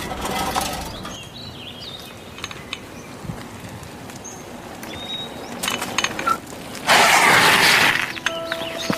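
Bicycle ridden over a dirt track, with scattered clicks and rattles, then a loud scraping rush lasting about a second near the end as the bike comes to a stop.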